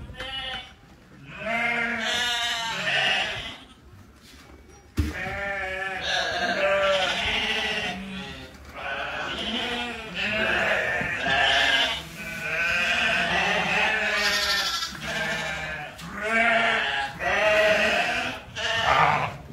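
A flock of sheep and lambs bleating, many wavering calls overlapping almost without pause, with a short lull and one sharp knock about five seconds in.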